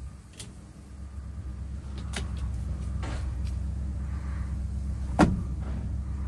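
Low, steady vehicle rumble heard from inside the cab of a 1970 Ford F250 as it moves behind a tow truck, growing louder about two seconds in. A few sharp knocks sound through it, and one louder clunk comes about five seconds in.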